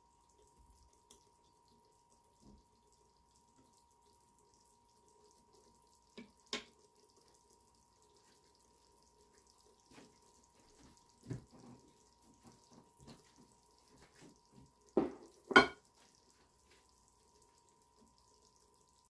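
Quiet clinks and knocks of kitchenware on a countertop, scattered through, with two louder knocks close together about three-quarters of the way through as a dish is set down. A faint steady high tone runs underneath.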